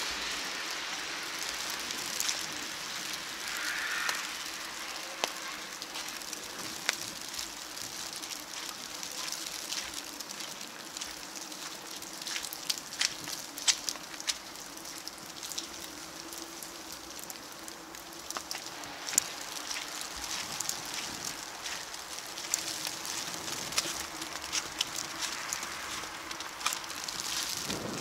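Wet snow mixed with rain falling, a steady hiss over wet pavement with many irregular sharp ticks of drops landing close by.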